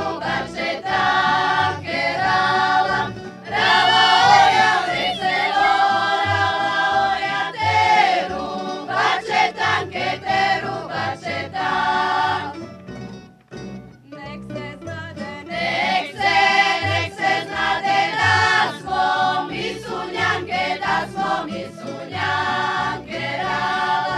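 A group of women singing a Croatian Posavina folk song together, with a double bass plucking a steady low beat underneath. The singing breaks off briefly about halfway through, then starts again.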